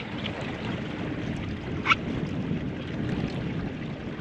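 Steady low wind and water noise around a small open boat, with one short high chirp about two seconds in.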